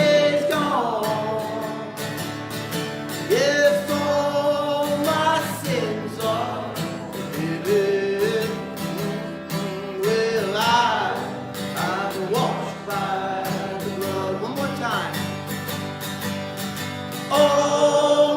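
A gospel worship song sung live, a voice carrying the melody over strummed guitar.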